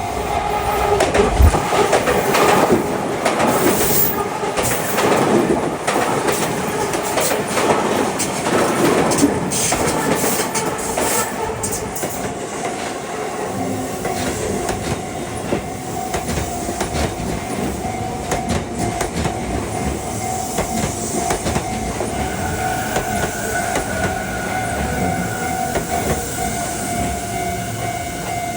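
An electric commuter train passes close by, its wheels clattering over the rail joints and loudest in the first dozen seconds before easing to a steadier rumble. A level-crossing warning alarm rings steadily underneath.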